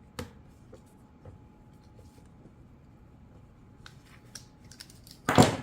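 Small scattered metallic clicks of a chainsaw bar and chain being handled and tightened down, then a brief loud scraping noise near the end.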